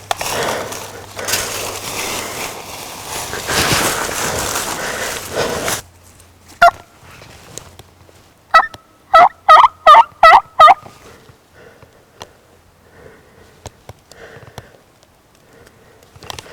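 A run of six loud, evenly spaced turkey yelps, each note breaking between two pitches, about halfway through, after a single yelp a couple of seconds before. The first third is a steady rushing noise that cuts off suddenly.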